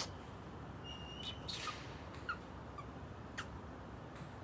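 Pet bird giving a short, faint whistled chirp, followed by a few soft clicks and small chirps.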